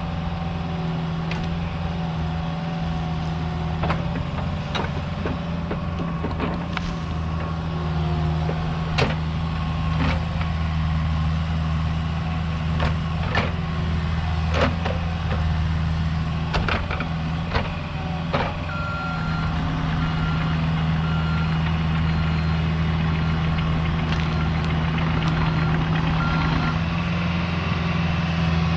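Skid steer's diesel engine running steadily under load while grading dirt, with occasional clanks from the machine. Past the middle its backup alarm beeps about once a second as it reverses.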